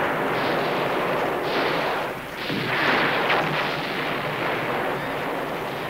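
Battle soundtrack of musket and cannon fire: a dense, continuous crackle of gunshots with several heavier blasts in the first three seconds.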